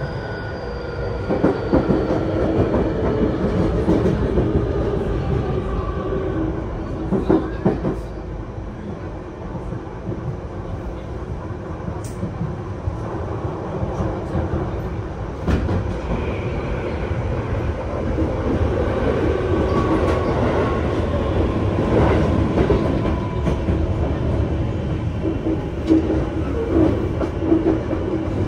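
Tokyu 5050 series electric train running, heard inside the passenger car: a steady rumble of wheels on rail, with a few sharp knocks from the rail joints. Faint whine from the Hitachi IGBT-VVVF inverter and traction motors falls in pitch in the first few seconds and comes back faintly later on.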